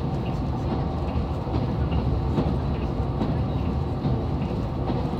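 KiHa 187 series diesel railcar running at speed: a steady diesel engine and running rumble, with repeated clicks of the wheels passing over rail joints.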